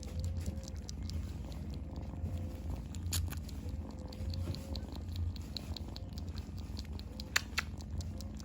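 Domestic cat purring steadily, with faint sucking ticks about three a second through the middle, from the cat suckling as it eats. Two sharper clicks, one about three seconds in and one near the end.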